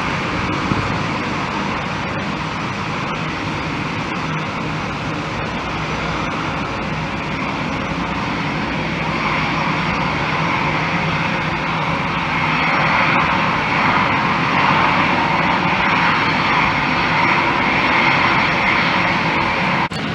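Aircraft engines running at an airport, a steady loud noise that swells louder about halfway through and stays up, then cuts off abruptly near the end.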